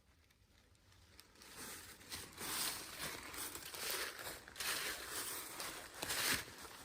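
Irregular rustling and crinkling, faint at first and louder from about two seconds in.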